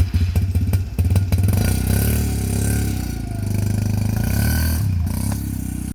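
Off-road vehicle engine catching and running, with rapid clatter as it fires in the first second or so, then rising in revs and running steadily until it cuts off suddenly near the end.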